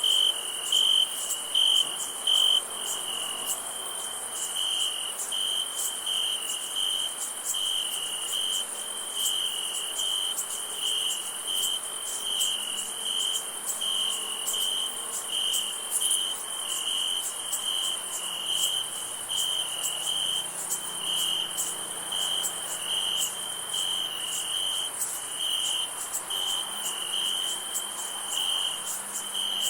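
Crickets chirping in a steady run of short pulses at one pitch, with a thinner, higher insect trill and fast ticking above it. A few louder chirps stand out in the first couple of seconds.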